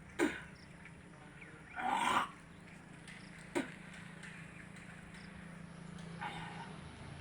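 A person retching and heaving, bringing up the water drunk for the jal dhauti (kunjal kriya) yogic stomach wash. There are four short heaves, and the one about two seconds in is the longest and loudest.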